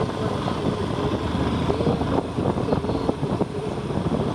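Motorcycle engine running while riding, its pitch wavering, under dense wind and road noise with frequent short knocks.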